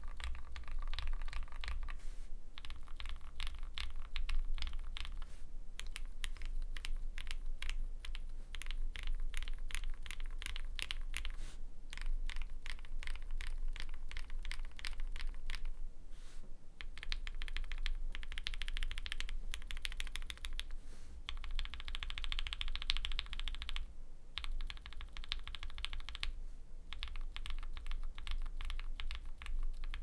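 Continuous typing on a gasket-mount mechanical keyboard with lubed, filmed Gateron Ink V2 linear switches in a full polycarbonate plate and GMK keycaps. Fast runs of keystrokes are broken by short pauses every few seconds.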